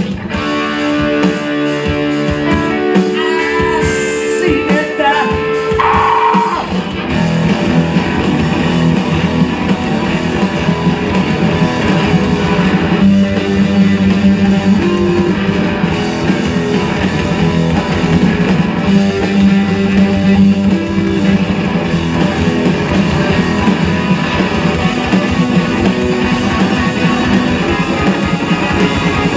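Live rock band playing loudly on electric guitars and drum kit. Held guitar notes ring for the first few seconds, then the band settles into a driving rhythm from about seven seconds in.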